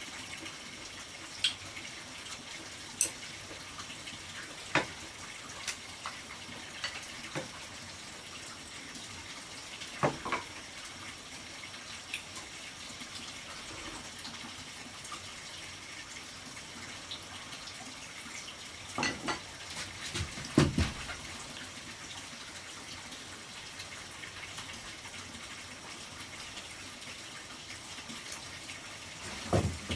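Steady running water, with scattered sharp knocks and clatters, a cluster of them about twenty seconds in and again near the end.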